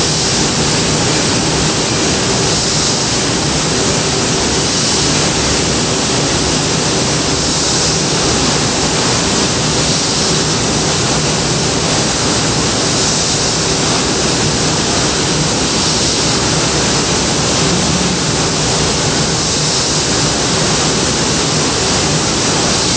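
Steady, loud roar of a hall of giant stationary gas engines running, an even dense noise with a faint steady hum under it.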